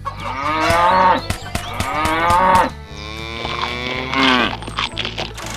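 Cow mooing, three long moos one after another, laid in as a sound effect.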